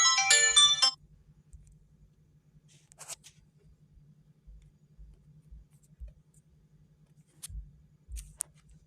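Samsung Galaxy A04 ringtone, a melody of quick bright notes, cutting off about a second in. After it come a few faint clicks and taps over a low steady hum.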